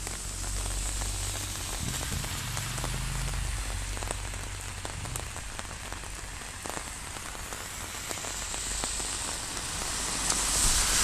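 Heavy rain falling, a steady hiss dotted with the taps of individual drops, over a steady low hum.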